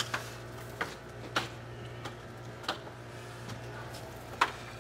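A handful of light clicks and knocks, scattered irregularly, from a hose-fed crack-injection gun being handled and coupled to the injection ports, over a steady low hum.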